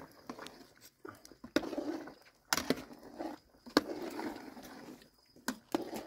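A scattering of sharp knocks and clicks, about half a dozen, with rustling noise between them.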